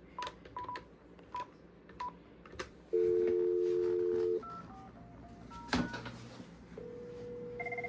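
A desk phone being used to call another extension: a few short key beeps, then a steady dial tone about three seconds in, a quick run of touch-tone digits being dialed, and a steady ringback tone from about seven seconds. Near the end a pulsed electronic ring from the called phone joins in.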